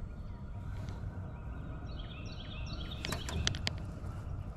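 Steady low outdoor background noise, with a bird singing a short run of high notes about halfway through, followed by a handful of sharp clicks.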